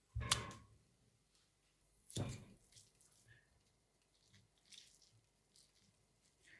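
Canned tuna turned out of its tin into a glass bowl: two short wet plops as it drops in, the first with a light knock of tin on glass. After that, faint squishing as the tuna is crushed into crumbs by hand.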